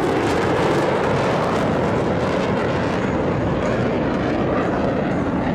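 Steady jet roar of Blue Angels F/A-18 Super Hornets flying past, the high hiss thinning slightly after about three seconds.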